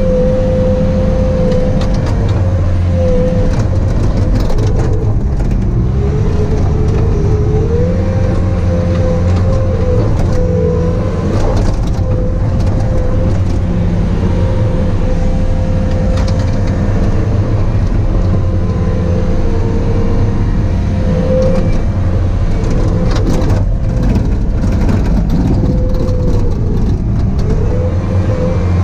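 Bobcat T595 compact track loader's diesel engine running steadily while it works, with a whine that wavers up and down in pitch throughout.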